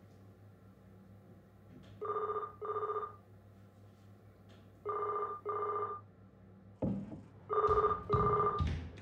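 Telephone ringing in a double-ring pattern: three rings about three seconds apart, each a pair of short electronic trills. A few knocks and rustles sound under the last ring.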